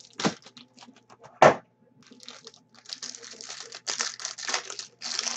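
Trading cards being handled: two sharp taps in the first second and a half, the second the loudest, then a rapid run of clicking and rustling as a small stack of cards is thumbed through.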